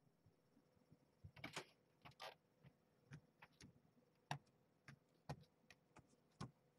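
Near silence broken by faint, irregular clicks and light taps, about a dozen over several seconds, over a faint steady hum.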